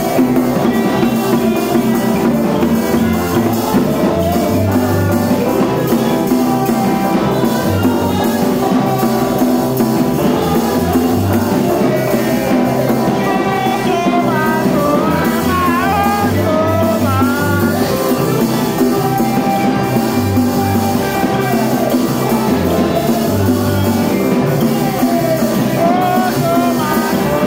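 Upbeat church dance music with a steady drum beat and bass, and a voice singing a melody over it in places.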